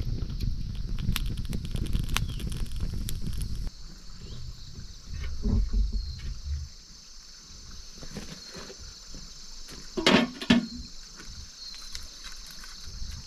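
Wood fire crackling, a dense run of snaps over a low rumble, that stops abruptly about four seconds in. After that, insects drone steadily in the background, broken by a couple of short, louder knocks or grunts around five and ten seconds in.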